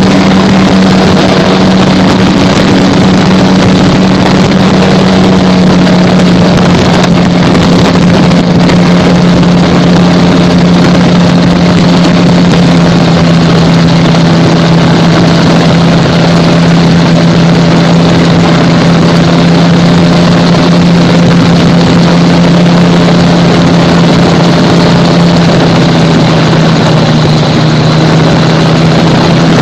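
Gyrocopter engine and propeller droning steadily in flight, loud and close. Its pitch eases down a little several seconds in, then holds.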